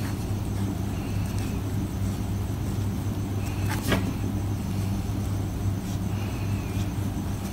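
A steady low hum, with a short wavering higher tone about every two and a half seconds and one sharp tick about four seconds in.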